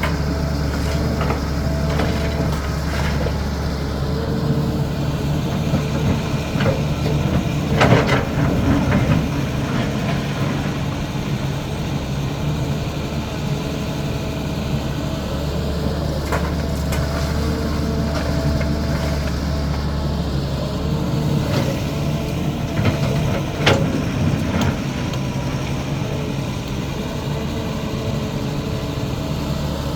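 CAT 320D excavator's diesel engine running steadily under work, with scattered sharp knocks and clanks; the loudest come about a quarter of the way in and again about three quarters in.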